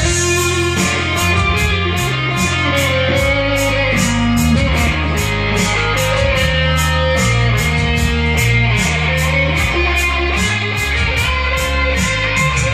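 B.C. Rich Warlock electric guitar played through an amp, riffing on changing low notes. A steady beat of sharp high ticks runs about three times a second.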